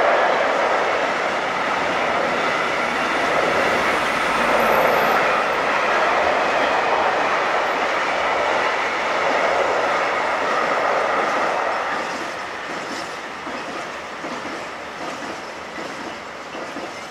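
Freight train wagons rolling across a railway bridge: a steady, loud noise of wheels on rails that fades away over the last five seconds as the train passes.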